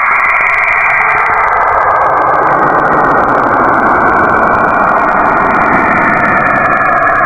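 Space 'planet sound', a sonified or synthesized drone: a loud, steady rumbling hiss with faint held tones in it, its low rumble growing stronger a couple of seconds in.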